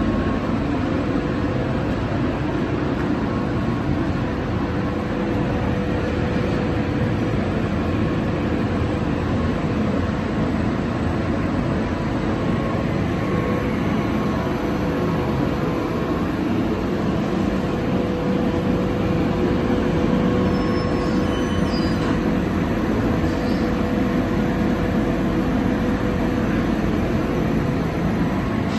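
Dog food processing machine running steadily: a continuous mechanical drone with a steady hum tone in it.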